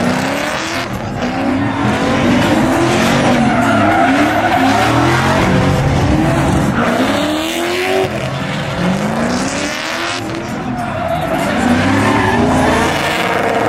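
Cars drifting: engines revving, their pitch climbing and dropping again and again, over the steady screech and hiss of tyres skidding sideways on the pavement.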